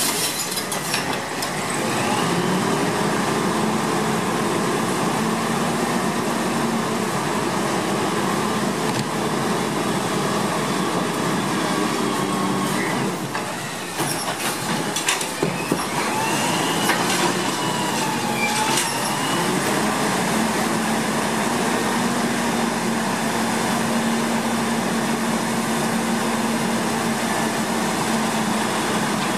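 Wayne automated side-loader recycling truck running, with its engine and hydraulics working the cart arm. Recyclables clatter into the hopper as a blue cart is tipped near the start and again around 14 to 16 seconds in.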